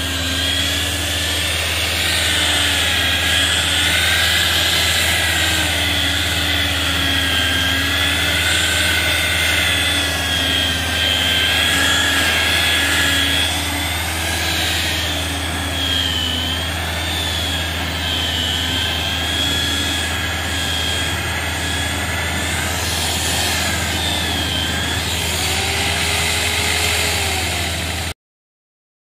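Electric rotary car polisher running on a car's painted bonnet: a steady motor whine that wavers slightly in pitch as the foam pad is worked across the paint. It cuts off suddenly near the end.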